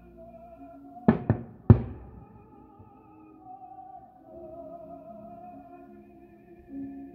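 Three sharp bangs of distant aerial firework shells bursting about a second in, close together, the last the loudest, over music with long held notes.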